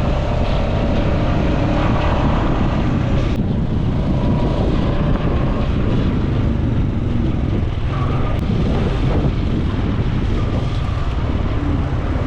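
Quad bike (ATV) engine running steadily while riding, a loud continuous drone.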